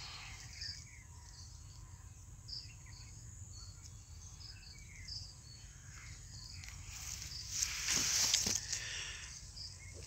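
Outdoor garden ambience: short, high chirps scattered about once a second over a steady low rumble, with a louder rustle at around eight seconds.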